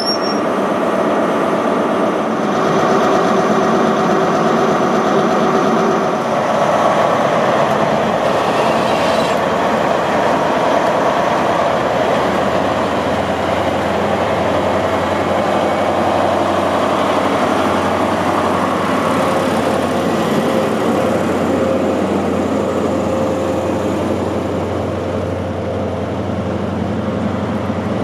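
Diesel engine of a Class 43 HST power car, an MTU V16, running loud close by as the train moves, with a steady engine drone. A deep hum comes in about a third of the way through.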